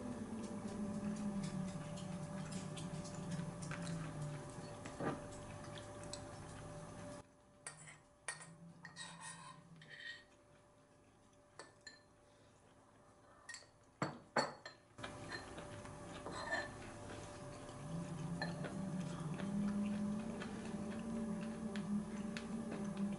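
Chopsticks and a spoon clicking lightly against ceramic bowls during a meal, scattered single clinks with a quick cluster a little past the middle, over a low steady room hum.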